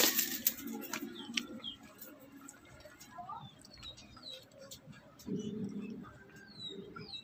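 Small birds chirping: a string of short, high chirps that fall in pitch. A low coo, typical of a dove, about five seconds in.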